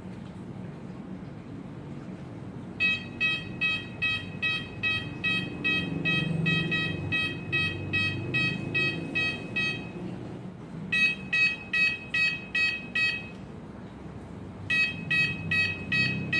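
Electronic beeper of a bicycle turn-signal and horn light unit, beeping in quick short pulses, about three a second, in three runs that stop and restart.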